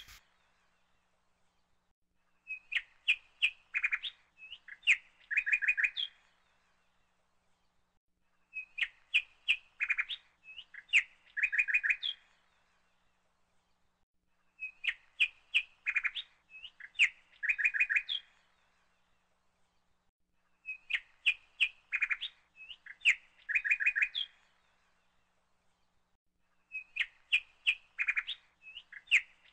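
A looped recording of bird chirping: the same phrase of quick, high chirps, about three seconds long, repeats every six seconds, five times, with dead silence between.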